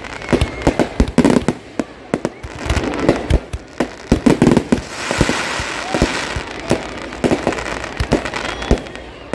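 Aerial fireworks display: a rapid, irregular run of bangs and booms from shells bursting overhead, dozens of reports in a few seconds, with a denser hissing stretch about five seconds in.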